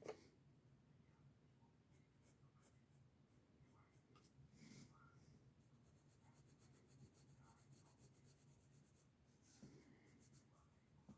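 Pencil scratching on paper in short strokes, faint, with a fast run of quick back-and-forth strokes in the middle.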